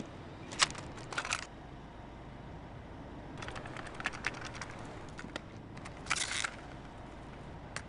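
Scattered sharp clicks and short crackling bursts over a faint steady hiss, in irregular clusters with quiet gaps between them.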